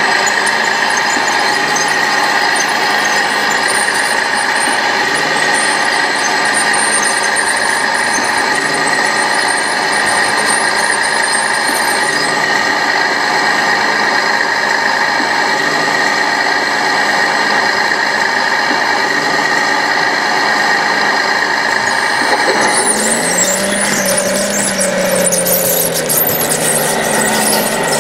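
Radio-controlled construction models running with a steady high whine. About 23 seconds in, the RC crawler bulldozer drives off over loose earth, adding the clatter of its tracks and a motor note that rises and falls.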